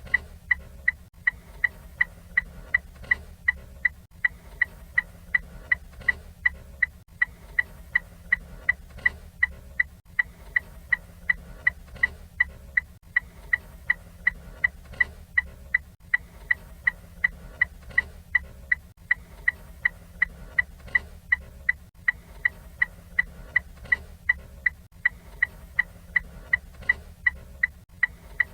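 Ford Fiesta turn signal indicator ticking steadily, about two sharp clicks a second, each with a short bright ring.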